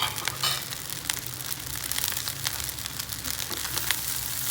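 Crackling and rustling in the pan as crisp fried anchovies are mixed into fried rice, with a few sharper clicks near the start.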